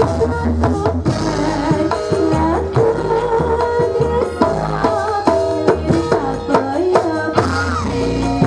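Javanese gamelan playing a lively dance piece, with the kendang drum beating out sharp strokes under stepping metallophone melody, and a female sinden singing into a microphone.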